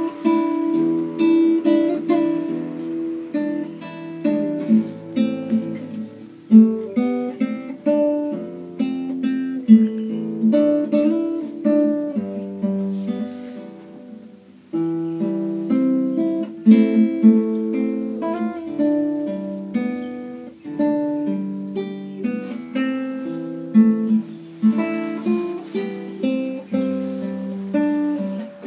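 Nylon-string classical guitar played fingerstyle, a melody picked over chords, with a short pause about halfway through before the playing picks up again.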